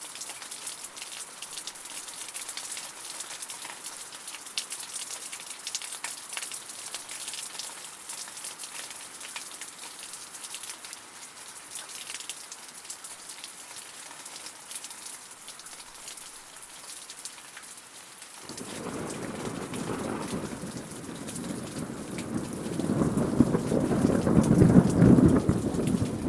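Steady rain falling, an even hiss with scattered individual drops. About two-thirds of the way in, a low rolling rumble of thunder builds up and is loudest near the end.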